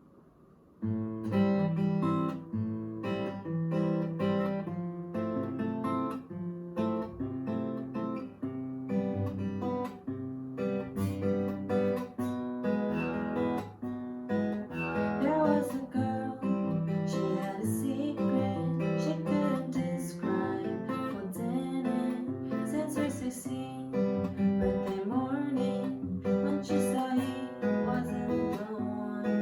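Acoustic guitar being strummed, starting suddenly about a second in and playing on steadily.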